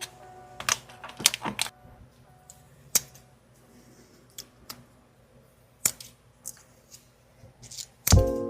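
Scattered sharp clicks and taps of small hard plastic model-kit parts being handled and pressed together, several close together in the first two seconds, then a few isolated ones. Background music comes back loudly near the end.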